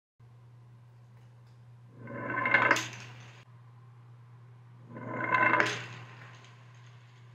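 All-wood toy car with wooden wheels and axles rolling down a wooden board ramp onto a concrete floor, twice. Each run is a rolling rattle that builds over about a second and then fades as the car runs off across the floor. A steady low hum runs underneath.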